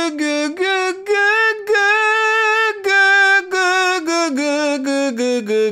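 A man singing a vocal exercise high in his range on a repeated "gu" syllable: quick short notes, then longer held ones, then notes stepping down in pitch near the end. The vowel is kept thick and narrow, in mix, without pushing through or widening.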